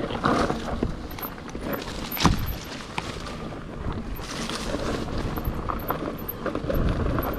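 Mountain bike rolling down a rough dirt singletrack: tyre noise and the rattle of the bike over bumps, with a sharp knock about two seconds in.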